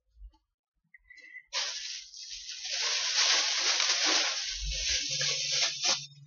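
Rustling as clothes and other purchases are handled and moved about, starting about a second and a half in and lasting several seconds, with a soft low thump near the end.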